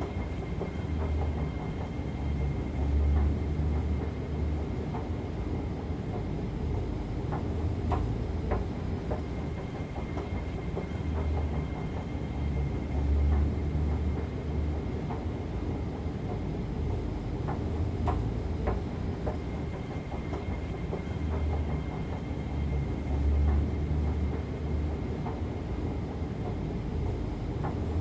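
Central–Mid-Levels escalator running: a steady low mechanical rumble that swells and eases every several seconds, with a faint high whine and occasional light clicks.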